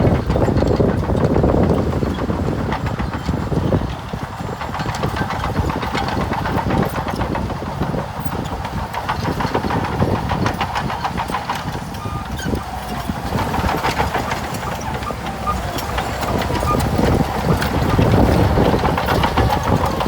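Heavy earthmoving machine's engine running steadily under work, with many short clanks and knocks of metal and rock over it.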